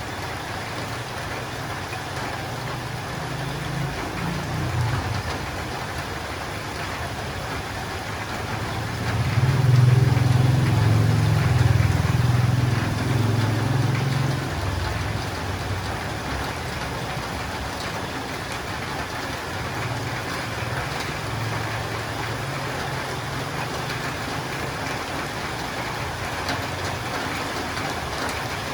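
Steady rain, with a low rumble underneath that swells about nine seconds in, is loudest for several seconds, then fades; weaker swells of the same rumble come a few seconds in and again after twenty seconds.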